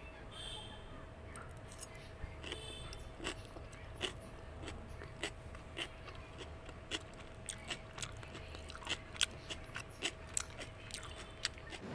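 A person biting and chewing crunchy stir-fried vegetables and shrimp, with quiet, sharp, irregular crunches about once or twice a second. A faint steady hum runs underneath.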